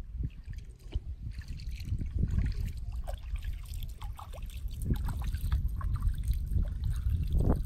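Kayak paddling: the paddle dips and splashes, and water drips and trickles off the blades, over a steady low rumble. The splashing picks up about a second and a half in.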